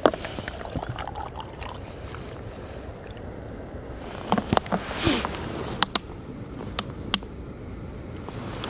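Jetboil gas stove burning with a steady hiss while heating water. A sharp click comes at the start, and several sharp clicks and knocks of cookware being handled come around the middle.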